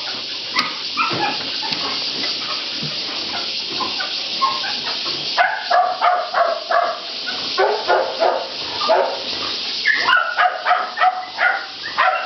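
Dogs barking in quick, repeated short barks from about halfway through, over a steady hiss.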